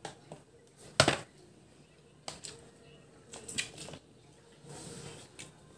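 A clear plastic food container being handled and set down on a tabletop: a sharp knock about a second in, then a few lighter knocks and clicks.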